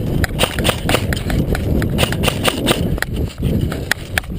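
Running footsteps on dry ground, several quick hard steps a second, with gear rattling and a heavy low rumble of movement and wind on a helmet-mounted camera.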